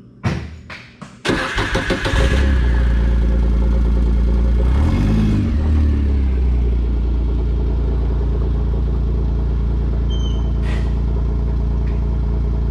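Kawasaki Mule Pro FXT's 812 cc three-cylinder engine being cranked and started after its oil change. A few short cranking bursts come first, then it catches just over a second in and runs steadily. Its pitch rises and dips briefly around five seconds in as the vehicle pulls away.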